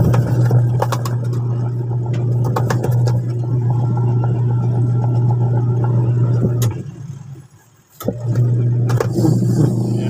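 Washing machine wash motor running with a steady hum while the pulsator turns, with a few clicks and knocks. About seven seconds in the motor cuts out for about a second, then starts again. The drive belt is loose, worn thin and slipping, the cause of the pulsator turning weakly under load.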